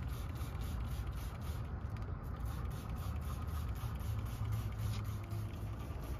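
Hand trigger sprayer squirting foaming engine degreaser onto the engine bay, over a steady low rumble.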